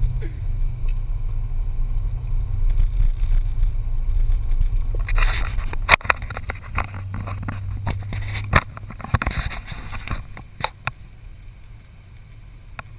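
Corvette Z06's V8 engine heard from inside the cabin, running at a steady low drone while cruising, then fading away about two thirds of the way through. Several sharp knocks and clicks in the cabin from about halfway.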